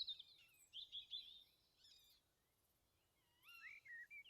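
Faint birdsong: several short, high chirping and trilling phrases, with a quiet spell of about a second in the middle before more chirps near the end.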